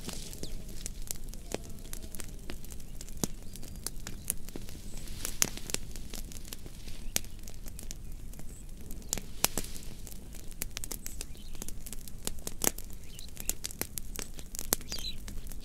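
Fire crackling, with irregular sharp snaps and pops over a low rumble of the flames. A bird chirps briefly near the end.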